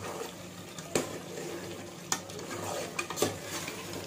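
A metal ladle stirring thick chicken korma masala in a metal pot, knocking against the pot's side about three times, over the low sizzle of the masala frying.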